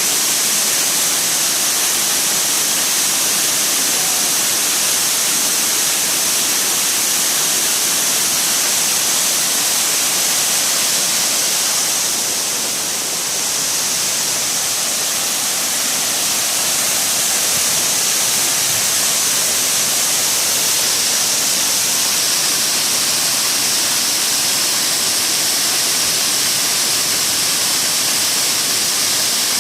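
Waterfall, a loud steady rush of falling water, with a brief slight dip in loudness about halfway through.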